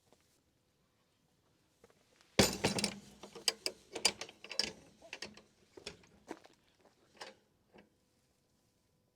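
A coop door and its latch being handled and shut: a sudden clatter of knocks and rattles about two seconds in, then scattered clicks and knocks that thin out and stop near the end.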